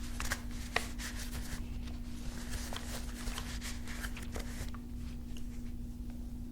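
Ruger 10/22 rifle being handled: a quick run of light clicks and rattles of its parts, thinning to scattered small clicks and stopping a little under five seconds in. A steady low hum runs underneath.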